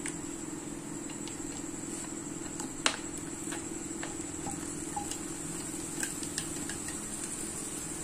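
Chopped onion, garlic and ginger tipped from a plastic chopper bowl into oil in a non-stick kadhai: scattered light taps and pops, the sharpest about three seconds in, over a steady background hum.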